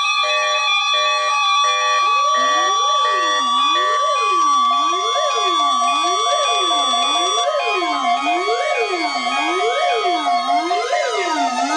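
Several NOAA weather radios sounding their alert alarms together for a weekly test. A steady high tone, with pulsing beeps for the first two seconds, then from about two seconds in an electronic siren that rises and falls roughly once a second, and another tone that glides up and fades near the end.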